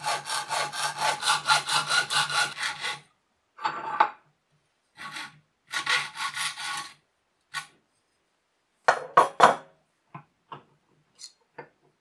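Hacksaw cutting a metal strip held in a bench vise. A fast, even run of strokes lasts about three seconds, then a few shorter bursts of sawing, then a couple of sharp knocks and light ticks.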